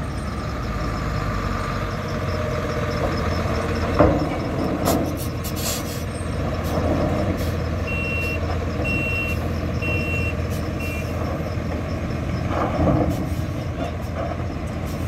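Diesel engine of a mobile truck crane running as the truck reverses over steel plates, with a sharp metallic knock about four seconds in. Near the middle a reversing alarm beeps four times, about once a second.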